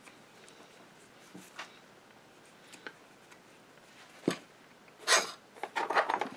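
Faint clicks and taps of a small sewing machine motor being handled at a bench, with a sharper knock about four seconds in. Near the end comes a short rustle and a flurry of small clatter as the motor is set down on a paper towel.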